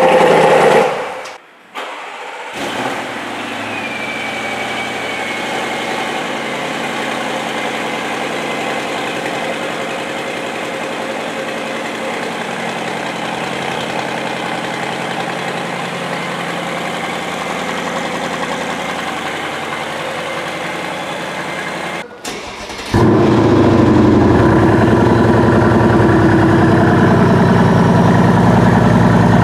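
Three car exhausts in turn. A C7 Corvette's V8 cuts off about a second in. A second car idles steadily and more quietly for about twenty seconds. From about 23 seconds, a louder, deeper idle comes from a Mercedes-AMG CLS 63's V8 through its quad rectangular tailpipes.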